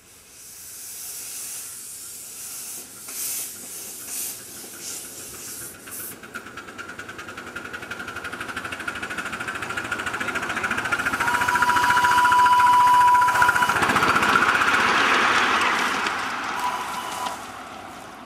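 Miniature live-steam locomotive running past, its rapid exhaust beats and steam hiss growing louder as it approaches and fading as it moves away. A whistle sounds for about two seconds as it draws near, with a short second blast a few seconds later.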